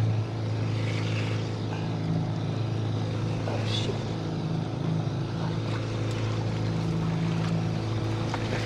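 Boat motor running steadily with an even, unchanging hum.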